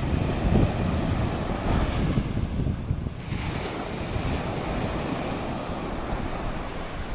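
Sea waves washing and breaking on the shore, with wind buffeting the microphone.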